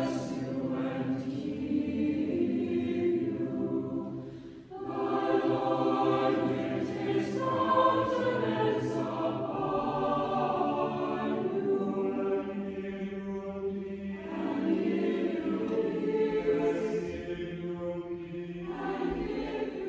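Choir singing long, held phrases, with a brief pause about five seconds in.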